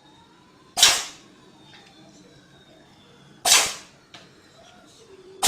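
A cat sneezing three times: short, sharp bursts a couple of seconds apart, the last right at the end.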